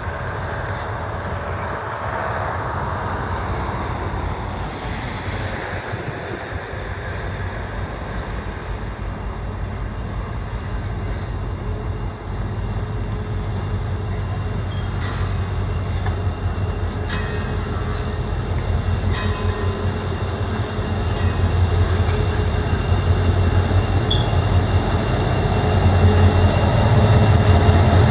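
Irish Rail 071 class diesel locomotive's EMD V12 two-stroke engine running steadily as the train of tank wagons moves slowly, the low engine hum growing louder over the last third. Faint high-pitched wheel squeal comes and goes from the wagons.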